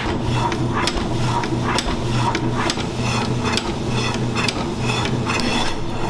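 Automatic meat slicer running, its carriage shuttling a frozen block of meat past the blade: a motor hum with a clack at each stroke, a little over two strokes a second. The strokes stop near the end.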